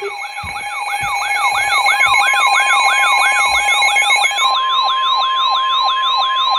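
Emergency alert alarm: a siren-like electronic tone sweeping quickly up and down about three times a second over steady alert tones. A single steady tone joins it about four seconds in.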